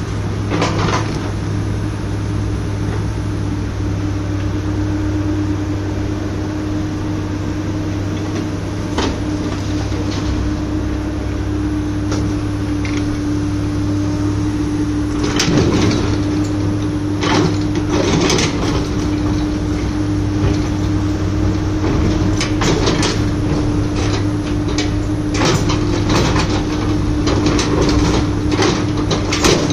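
L&T-Komatsu hydraulic excavator's diesel engine running steadily, with scraping and clanking from its bucket digging into soil and rubble, coming more often in the second half.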